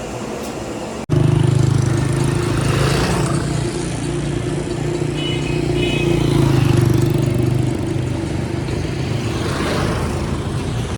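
An engine or motor running steadily with a low hum that starts abruptly about a second in.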